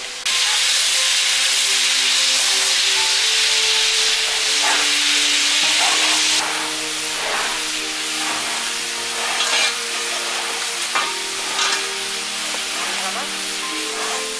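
Garden hoes and a rake scratching and scraping over soil, leaves and the top of a brick wall: a loud, steady scratchy hiss that drops about six seconds in, followed by separate scraping strokes. Quiet background music with soft held notes plays underneath.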